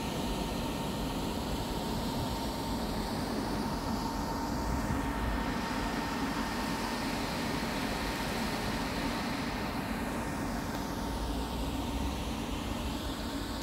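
Steady rumble of road traffic from the surrounding streets.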